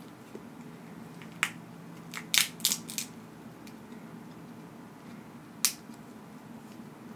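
Snow crab leg shell cracking and snapping as it is broken apart by hand. There is one crack about a second and a half in, a quick run of about five cracks between two and three seconds, and one more sharp crack later on.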